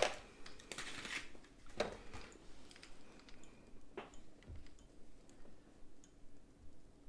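A few sharp clicks and taps of small tools being handled at a soldering bench, with a short hiss about a second in and a faint steady hum underneath.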